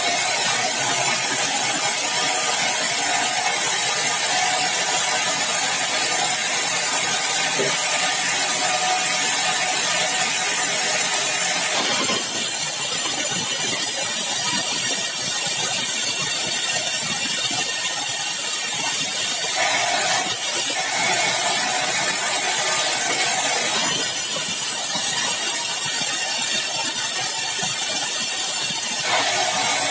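Sawmill saw cutting through a dry bengkirai (balau) hardwood log: a steady, loud hiss with a faint whine, changing in character several times as the cut goes on.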